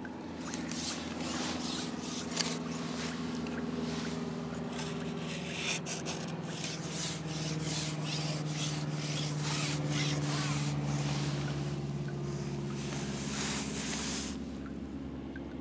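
A long carbon fishing pole being shipped out over the water, the pole sections rubbing and sliding in a long series of strokes, over a steady low hum.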